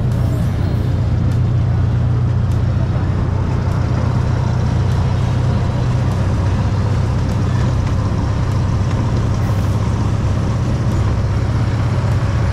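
Steady low engine hum of a small park ride train pulling open-sided passenger cars, heard from a seat aboard.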